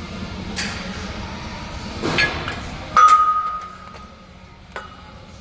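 Gym weights clanking: a sharp metallic clank about three seconds in rings on briefly as a single tone, with lighter clinks and a clatter before it, over background music.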